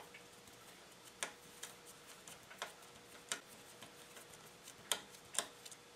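Hex driver unscrewing a stopper bolt from a Creality Ender 3 S1 Plus bed plate: faint, irregular metal clicks, about eight of them, over a faint steady hum.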